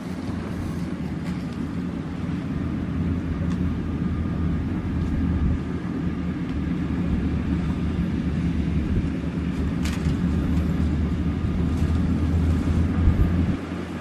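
Maxxi Bimo 102L New combine harvester running as it cuts and threshes rice: a steady diesel engine drone with machinery noise, growing gradually louder as it comes closer.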